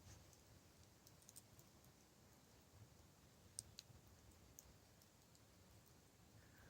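Faint, sparse crackles and pops from burning firewood in a small campfire, with the sharpest pop about three and a half seconds in.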